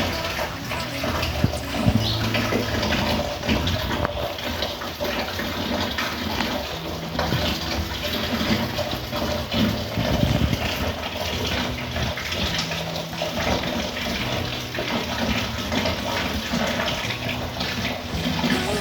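Steady heavy rain falling, a continuous even hiss of water.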